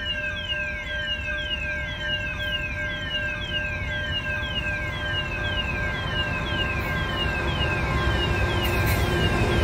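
Railway level-crossing warning bell sounding a repeated falling ding about twice a second. Under it, the low rumble of an approaching train grows louder toward the end.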